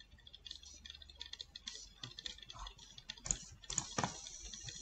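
Faint, irregular clicking and tapping from a computer keyboard and mouse, a few clicks louder in the second half.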